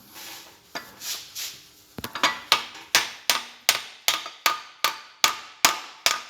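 Hammer tapping steadily on a steel punch, about three strikes a second, each with a short metallic ring. It is driving the tractor gearbox's mainshaft assembly forward in the case so the snap ring can be fitted. The strikes start about two seconds in.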